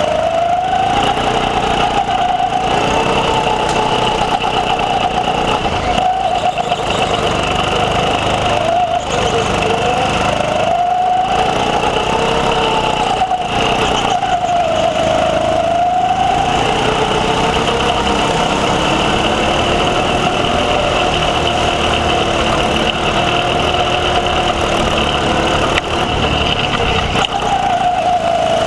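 Go-kart engine running flat out on track, heard from onboard the kart. Its pitch rises and falls repeatedly as it accelerates out of corners and slows into them. A second, lower engine note runs underneath in the latter half.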